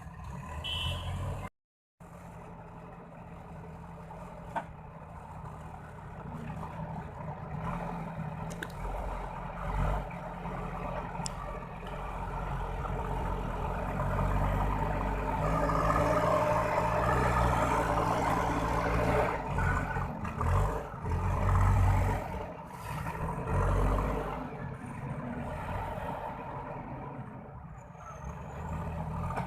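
JCB 4DX backhoe loader's diesel engine running, working harder and louder through the middle stretch, then easing back toward the end.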